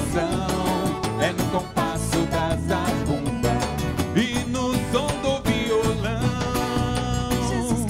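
Live forró band playing an instrumental passage with accordion, zabumba drum and triangle in a brisk, steady dance rhythm.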